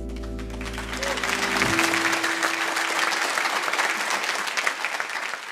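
A live band's held final chord, deep bass included, cutting off about a second and a half in. Studio audience applause swells under it and goes on as the loudest sound.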